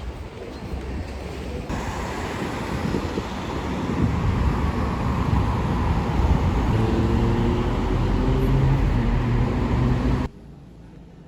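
Loud, rushing vehicle noise that grows louder, with a low hum coming in over the last few seconds, then cuts off suddenly.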